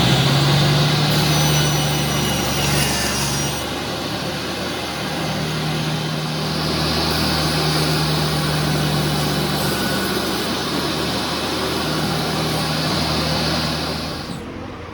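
A woodworking power tool's electric motor running steadily, its pitch and load shifting a little, then dropping away near the end.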